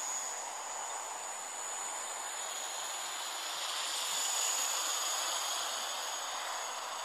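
Gaui 330X-S quadcopter flying at a distance: a thin high whine from its motors that sags and then rises slightly in pitch, over a steady hiss.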